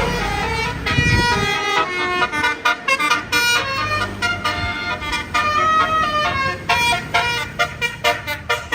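A multi-tone musical horn tooting a quick tune of short notes that change pitch several times a second, in the manner of an Indonesian 'telolet' bus horn.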